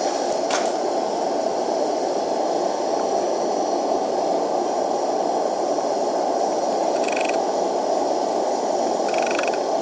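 Homemade blast furnace running at full heat: a steady rushing noise of burner flame and forced air that holds level throughout.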